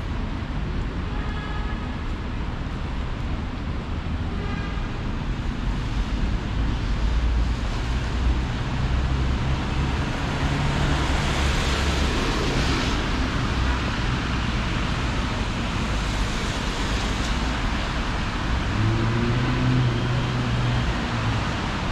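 Street traffic: the steady rumble of cars and other motor vehicles passing close by. One vehicle goes by louder about halfway through, and an engine note stands out near the end.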